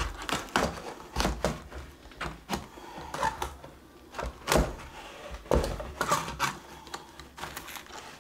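Irregular clicks and knocks of a plastic clamp-on canvas handle with a wire loop being worked onto a canvas's wooden stretcher bar. The loudest knocks come about halfway through.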